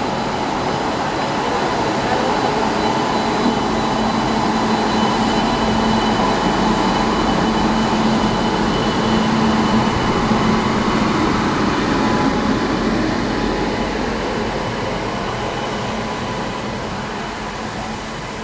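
Electric locomotive of an Indian Railways express pulling out past the platform, its steady hum with faint tones under the noise, followed by the coaches' wheels rolling over the rails. The sound is loudest about halfway through and fades toward the end as the coaches go by.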